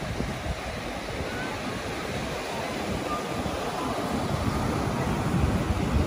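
Ocean surf breaking and washing up on a sandy beach, with wind buffeting the microphone in low gusty rumbles.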